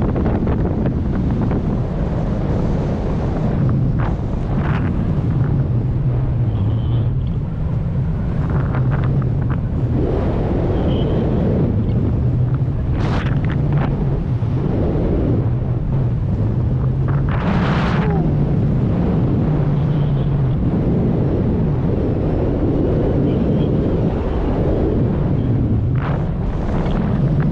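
Wind buffeting the microphone in a steady, loud rush, with a low wavering hum underneath.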